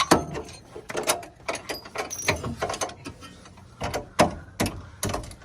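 Irregular metal knocks and clanks of hand tools on a Mazda MX5's running gear, hammer taps among them, as a driveshaft is worked loose.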